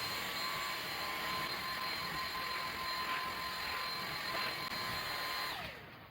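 Dyson V6 cordless stick vacuum running with a steady high whine and rush of air, powered by its newly fitted battery. It is switched off near the end, and the motor's whine falls in pitch as it spins down.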